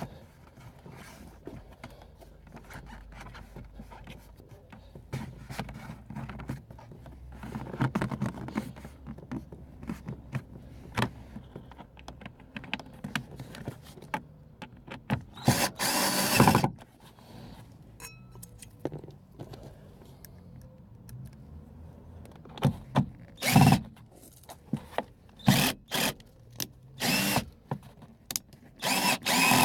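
Cordless drill-driver running in short bursts while fitting the retaining screws of plastic interior trim, with one longer run of over a second about halfway through and a quick series of short runs near the end. Low handling and clicking of the trim comes in between.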